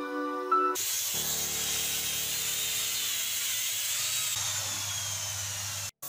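A power tool working wood runs steadily, a strong hiss over a low hum. It starts abruptly under a second in and cuts off sharply near the end.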